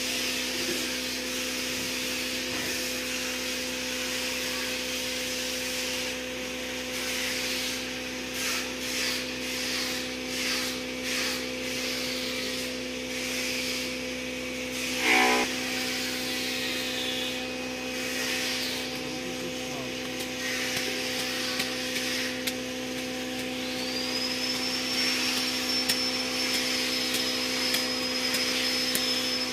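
A wad of fibre rubbed by hand over a carved wooden panel to work in polish, a series of rasping strokes, over a steady hum that runs throughout. A brief louder sound comes about halfway, and a thin high tone joins in near the end.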